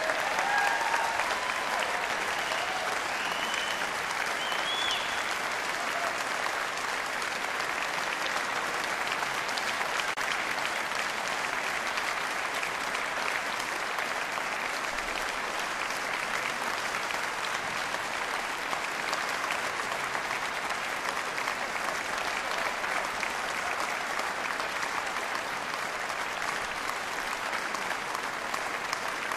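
Audience applauding steadily, with a few calls or whoops rising above the clapping in the first few seconds.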